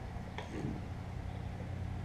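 A steady low hum, with one brief faint sound about half a second in.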